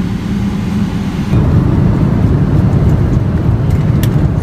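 Steady low rumble of an airliner's passenger cabin: jet engine and airflow noise heard from a seat, growing a little louder about a second and a half in.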